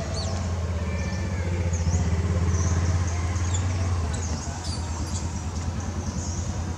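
Low, steady motor-vehicle engine rumble, swelling a little about two seconds in and easing after four, with short high-pitched chirps scattered over it.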